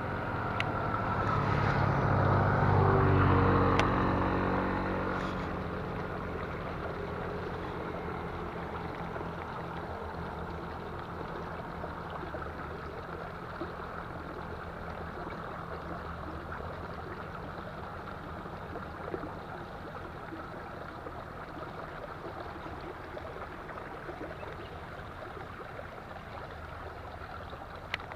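An engine passing by: it swells to its loudest about three seconds in, with its pitch falling, then fades away over the next few seconds, leaving a steady hiss.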